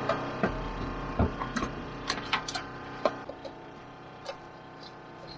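Sharp clicks and light taps of a thermostat and its brass probe being handled and pushed into the element flange of a Quick 40-litre boat water heater, most of them in the first three seconds, over a steady background tone.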